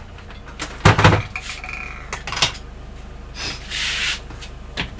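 Curtain fabric being handled on a wooden table: a couple of sharp knocks about a second in, a brief high squeak just after, then several short rustling swishes of cloth.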